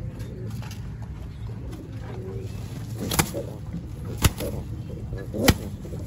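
Pigeons cooing softly over a steady low hum, with three sharp clicks about a second apart in the second half.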